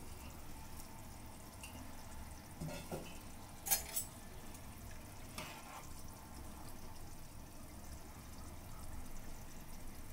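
Soaked rice being stirred in hot water in an aluminium handi with a steel spoon: faint water sloshing, with a few light clinks of the spoon against the pot from about three and a half to five and a half seconds in.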